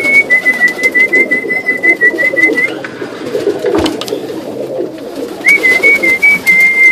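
Pigeons cooing in a loft, with a thin high steady tone heard twice: for about the first two and a half seconds and again over the last second and a half.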